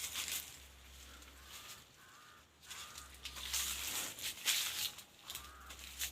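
Rustling of dry maize leaves and weeds in several bursts, loudest about three to five seconds in, with short bird calls between them.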